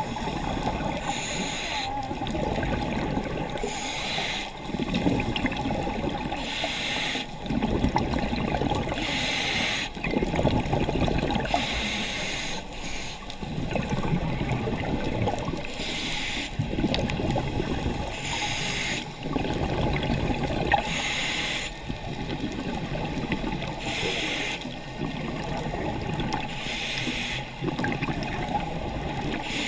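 Scuba diver breathing through a regulator underwater: a short hiss on each inhale every few seconds, alternating with the low bubbling gurgle of exhaled air.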